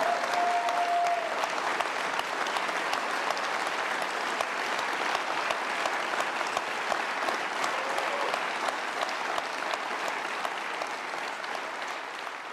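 An audience applauding: dense, steady clapping from many hands, easing off slightly near the end.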